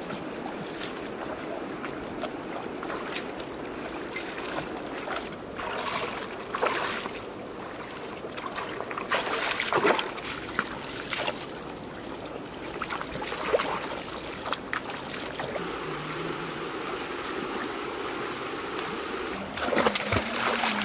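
Shallow rocky stream trickling steadily, with scattered splashes and sloshes as people wade through it. Near the end comes a burst of heavy splashing as water is thrown about with a basket.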